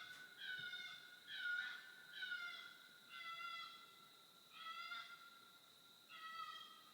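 An unidentified wild animal giving an awful series of calls: about seven cries, each shorter than a second and falling in pitch, roughly one a second at first and then more spaced out. A faint steady high tone runs underneath.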